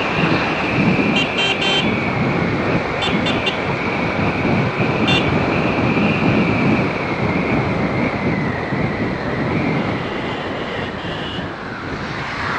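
Busy road traffic noise with several short horn beeps about a second in, around three seconds in and near five seconds.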